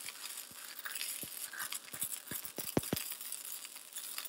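Gasless flux-core wire-feed arc welding on thin-wall galvanized steel tubing, at about 14 volts: a steady crackling sizzle with irregular sharp pops, thickest around the middle.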